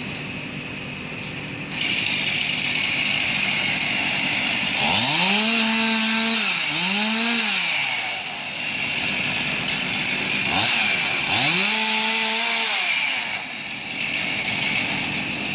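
Chainsaw running from about two seconds in, its engine revving up to full speed and dropping back twice.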